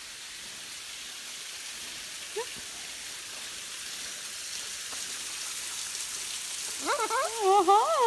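Waterfall spilling down a rock face, a steady hiss. A short call sounds about two and a half seconds in, and near the end comes a louder pitched call that wavers up and down.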